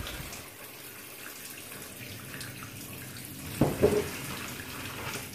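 Cold water running from a kitchen tap into a stainless steel sink while a pot of pasta water is poured out into a colander, a steady rush of water. About three and a half seconds in there is a brief louder clatter.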